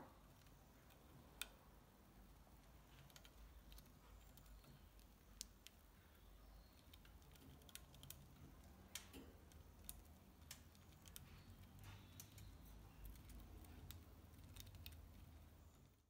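Budgerigar's beak nibbling and gnawing at a bark-covered wooden perch: faint, irregular small clicks and scrapes, with a low hum beneath.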